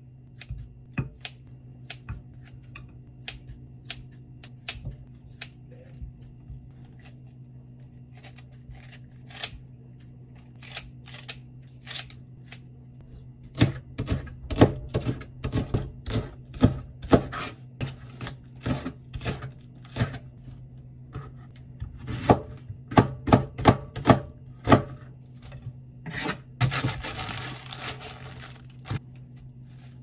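Kitchen scissors snipping pork belly with scattered sharp clicks, then a chef's knife chopping green onion on a cutting board in quick runs of strokes through the middle. A brief rustle follows near the end.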